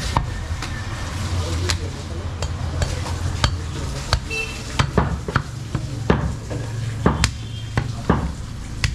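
Butcher's cleaver chopping goat meat on a wooden chopping block: sharp, irregular strikes about two a second, over a steady low hum.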